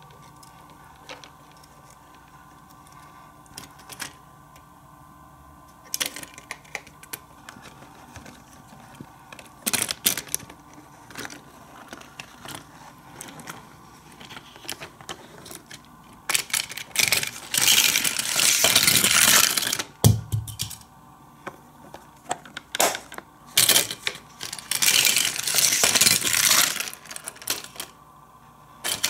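Plastic toy playset clicking and clattering as its parts are worked: scattered sharp clicks and knocks, then two longer stretches of fast, dense rattling, about halfway through and again near the end, with a dull thump between them.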